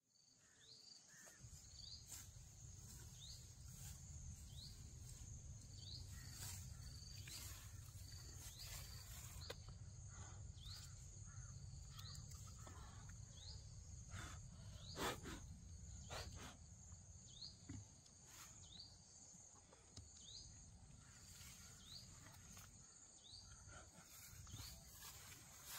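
Faint forest ambience: a steady high insect drone with a short high chirp repeating every second or so, over a low rumble. A few soft clicks or rustles, the clearest about halfway through.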